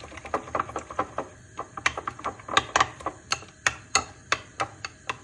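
Metal spoon clicking against a glass bowl as it stirs a thick yogurt-and-flour mixture, about four light clicks a second.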